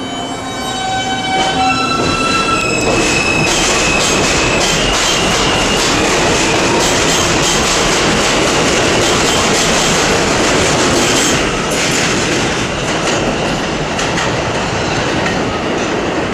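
R160A-1 subway train with Alstom ONIX propulsion pulling out of the station: the motor whine climbs in distinct steps like a rising scale for the first few seconds. Then the cars rush past with the wheels clattering over the rail joints, and the noise eases off after about eleven seconds.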